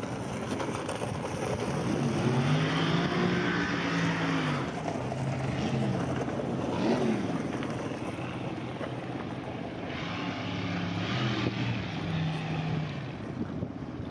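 A car engine running and revving up and down a few times, with a sharp rev near the middle, over wind noise on the microphone.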